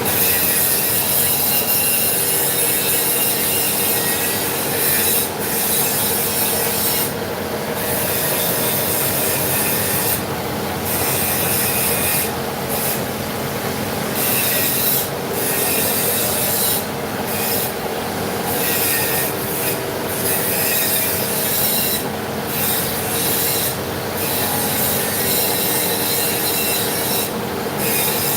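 CNC vertical machining centre running a milling cut: a steady machine hum with several held tones, under a harsh, scraping high hiss that drops out briefly again and again, every second or two.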